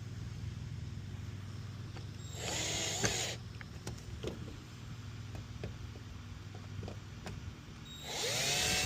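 Two short whirs of a power drill driving in the third brake light's mounting screws, about two and a half seconds in and again near the end, each rising then falling in pitch. Faint ticks come in between, over a steady low hum.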